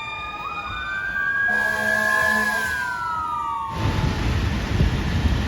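Fire truck siren wailing, its pitch rising and then falling, with an air horn sounding from about a second and a half in, in two blasts. Near the end a loud, heavy rumble comes in as the fire truck moves off.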